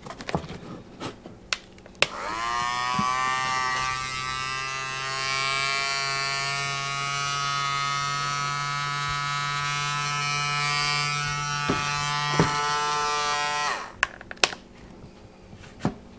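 The Real Decoy Natural Swimmer duck decoy's battery-powered propeller motor, switched on with a click about two seconds in, winding up quickly to a steady whine. It runs for about twelve seconds and then stops abruptly. A few handling clicks come before and after.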